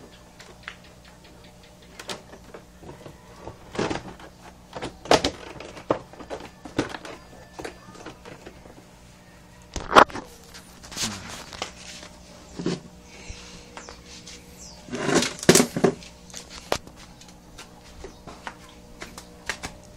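Irregular clicks, taps and knocks from hands handling plastic wiring connectors and the handheld camera, the loudest about halfway through, over a faint low steady hum.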